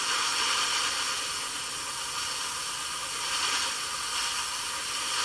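Airbrush hissing steadily, a continuous stream of compressed air blown over a model canopy to dry off a light coat of tint.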